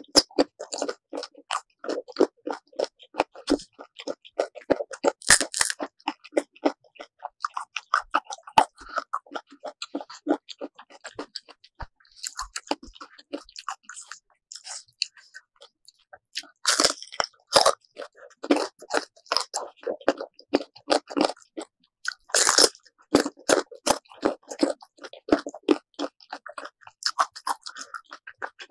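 Close-up biting and chewing of crunchy sour mango, a dense run of crisp crunches and smaller chewing clicks, with the loudest crunches about five, seventeen and twenty-two seconds in.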